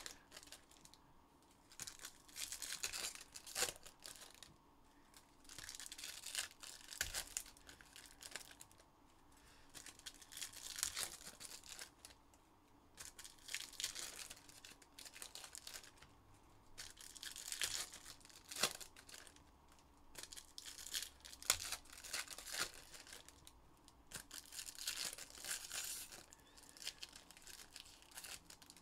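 Topps Chrome Overtime Elite trading card pack wrappers being torn open and crinkled, in repeated bursts of a second or two every three to four seconds.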